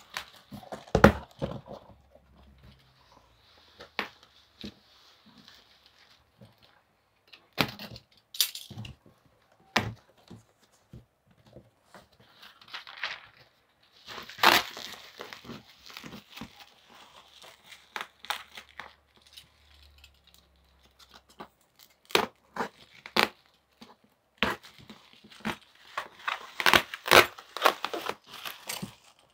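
A black plastic bag and bubble wrap being pulled open and crinkled around a cardboard box, with irregular rustles, tearing and small knocks. The handling gets busier near the end.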